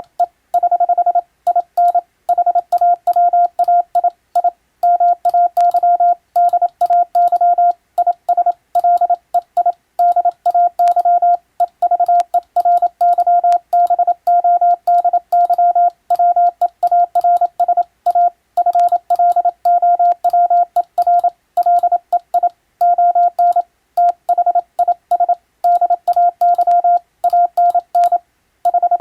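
Morse code (CW) sent as a single steady tone keyed rapidly on and off in short and long elements, with only brief pauses between groups.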